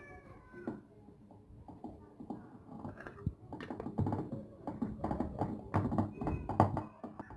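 Irregular knocking and clattering from handling a jar of salted lemons, the knocks growing denser and louder from about three seconds in.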